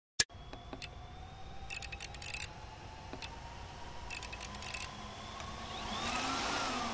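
Sound effects for an animated logo reveal: a sharp click at the start, then two short bursts of electric crackling over a faint, slowly rising tone, and a whoosh swelling near the end.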